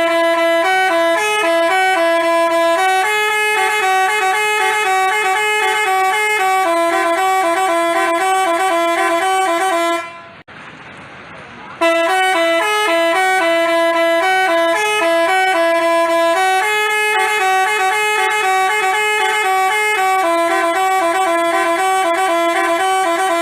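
Basuri telolet multi-tone bus horn playing a melody of short stepping notes for about ten seconds. It stops briefly, then plays the same tune again.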